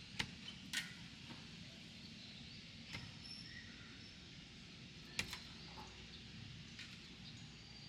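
A few sharp knocks at irregular intervals over a low steady rumble, with faint high chirps in between.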